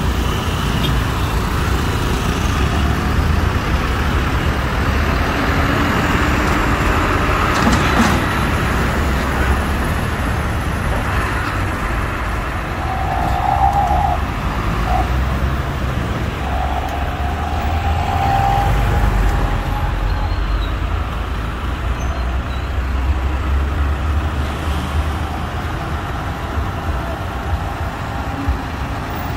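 Road traffic of cars, motorcycles and buses driving across a railway level crossing, with engines running and a steady rumble. Near the middle a short steady tone sounds twice.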